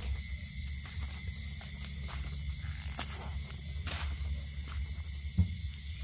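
A steady chorus of night insects, a pulsing high trill, over a low rumble. A few soft clicks, and a sharp thump about five and a half seconds in.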